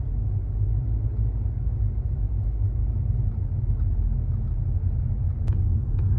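Steady low road rumble inside a moving car.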